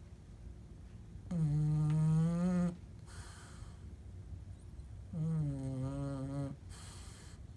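Bulldog snoring: two long pitched snores about four seconds apart, each followed by a short breathy hiss.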